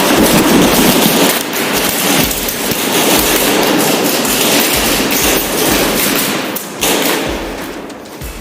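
Rapid airsoft gunfire: a dense run of sharp cracks and clicks from several guns and BBs striking, with a dip about 6.7 s in and a lull near the end.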